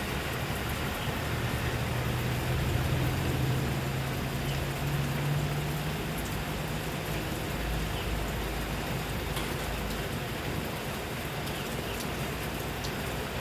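Steady rain falling, with a few separate drops ticking. Underneath, a low engine hum from a vehicle runs through the first half, rising a little in pitch before it fades, followed by a deeper rumble a few seconds later.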